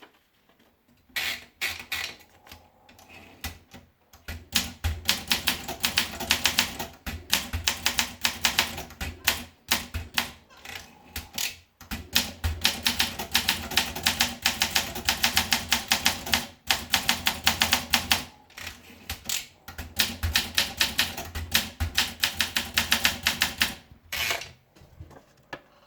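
Olympia SM4 manual portable typewriter being typed on: a few scattered keystrokes, then long fast runs of sharp type-bar strikes, about eight to ten a second, broken by brief pauses.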